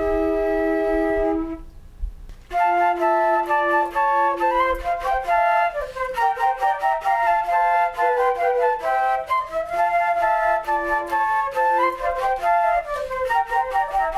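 Flute music: a held note with a slight waver ends about one and a half seconds in, and after a short pause a new melody begins in smooth, sustained steps.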